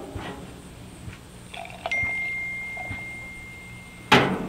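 A glass is knocked and rings with one clear, steady tone that slowly fades over about two seconds. Then a sparkling-wine cork pops loudly out of the bottle near the end.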